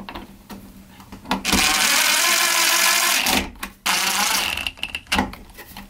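DeWalt cordless impact driver driving the screws that fasten the cover onto a blue plastic electrical junction box. There are two runs: a longer one starting about a second and a half in and lasting nearly two seconds, then a short one about four seconds in, with light handling clicks before them.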